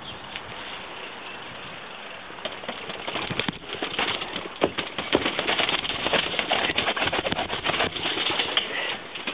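Mountain bike riding over a rough trail, heard from a helmet-mounted camera: tyre noise and the bike rattling with many small knocks over rushing wind. It gets louder and busier about two and a half seconds in.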